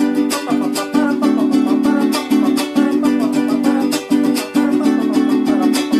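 Jarana huasteca strummed fast and steadily: a repeating rasgueo pattern (manico) of quick strokes on one chord, used to accompany zapateados and huapango norteño.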